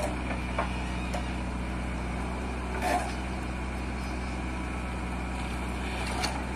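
Diesel engines of the tractors and a JCB 3DX backhoe loader running steadily at an even, low pitch while the backhoe digs soil, with a few short clanks, the loudest about three seconds in.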